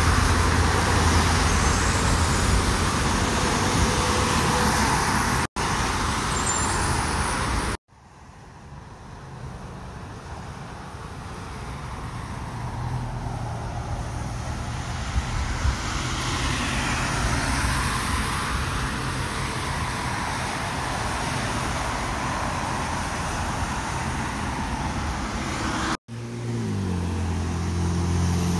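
Road traffic passing on a multi-lane road: steady tyre and engine noise that swells as vehicles go by, broken by a few abrupt cuts. Near the end a deeper engine hum comes in as pickup trucks approach.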